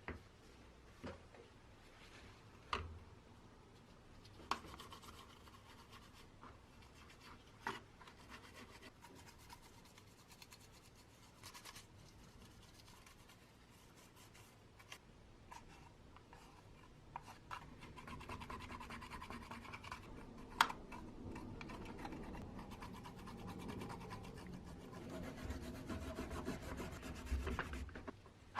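Quiet hand rubbing and scratching on old fan parts, with scattered light clicks and taps, growing a little louder in the second half.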